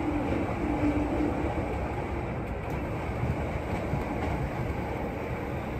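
Amtrak Southwest Chief passenger train running at speed: a steady rumble and rush of wheels on track, with a faint hum over the first second and a half.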